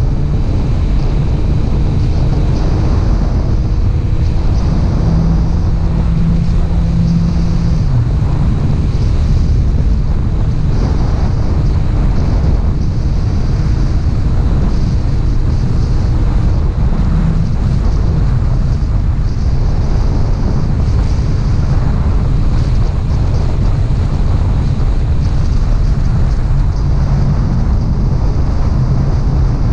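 Kawasaki Ninja ZX-6R's inline-four engine with an Akrapovič exhaust, running steadily on the move. Heavy wind rush on the microphone sits over it.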